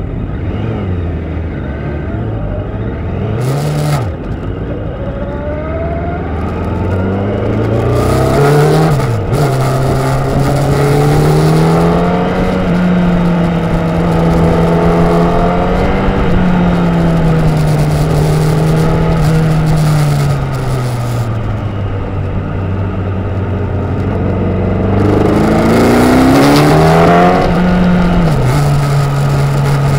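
Sports motorcycle engine heard onboard, accelerating hard and changing up through the gears: the pitch climbs and drops sharply at each upshift, three times, and eases off and picks up again through the bends. Wind rushes over the bike-mounted microphone at speed.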